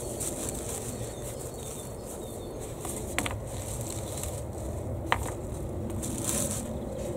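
Horticultural fleece rustling and crinkling as gloved hands tuck it down over a plant, with a few short sharp clicks about three and five seconds in.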